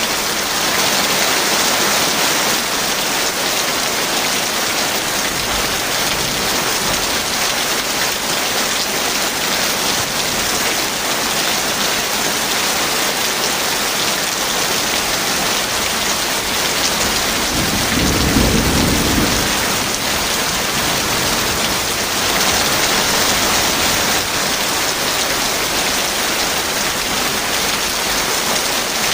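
Heavy rain falling steadily. A low rumble of thunder comes about two-thirds of the way through and lasts a second or two.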